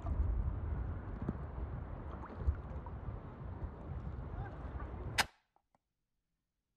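Sea water sloshing around a camera held at the waterline, with a low rumble on the microphone. About five seconds in there is one sharp crack, and the sound cuts off to silence.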